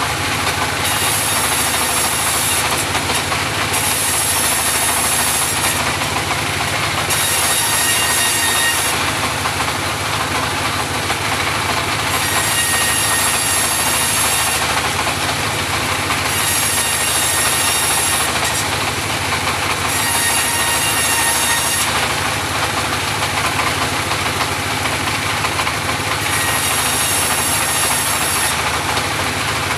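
Engine-driven homemade portable bandsaw mill running steadily, with a high-pitched hiss that comes and goes every one to three seconds.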